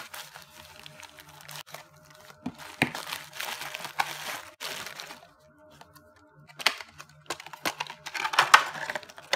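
Plastic bubble wrap crinkling as it is handled, with sharp pops. The loudest cluster comes about eight to nine seconds in.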